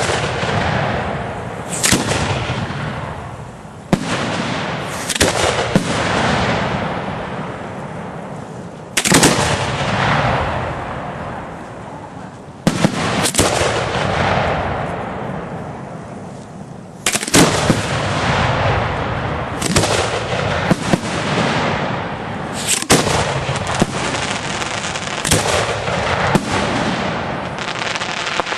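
Aerial firework shells bursting: about fifteen sharp bangs, some close together in pairs, each trailed by a few seconds of fading crackle and echo.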